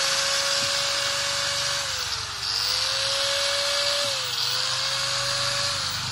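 A 100 V, 760 W electric angle grinder running free with no load, its motor whine steady and smooth. Its pitch dips and recovers twice, and near the end it begins to wind down.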